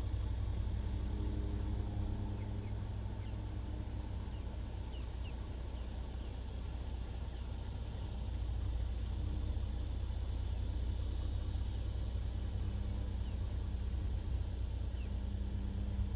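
Outdoor ambience: a steady low rumble with insects chirping faintly above it.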